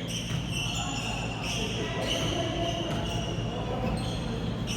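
Pickup basketball game on a court: sneakers squeaking in short, high chirps over and over as players cut and stop, with a basketball bouncing.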